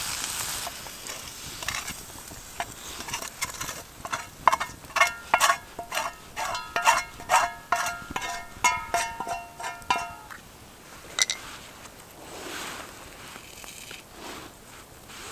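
A metal utensil knocks and scrapes in a metal cooking pan in a quick, uneven run of clinks that set the pan ringing. One sharper clink follows after a pause.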